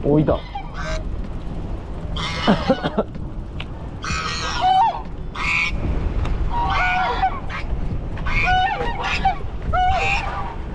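Gulls calling over and over, loud harsh calls with bending, falling ends, over a steady low rumble.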